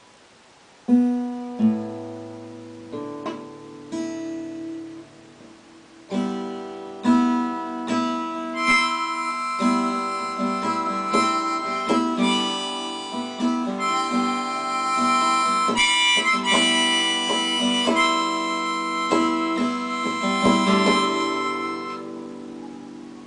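Acoustic guitar strumming chords, joined about six seconds in by a harmonica playing a melody over them, in an instrumental song intro with no singing. Both play together until they drop away near the end.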